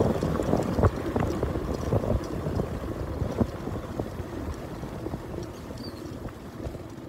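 Wind rumbling on the microphone of a camera moving along a rough dirt track, with scattered knocks. It fades gradually toward the end.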